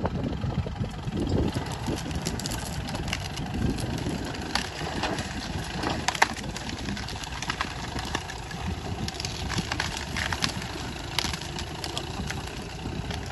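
Tractor engine running steadily as its front blade shoves a fallen tree and dirt into a pond, with scattered sharp cracks of branches being pushed through.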